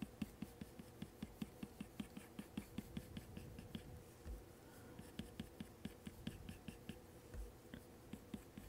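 Apple Pencil tip flicking quick short strokes across an iPad Pro's matte screen protector: faint, rapid taps at about five a second, pausing briefly twice.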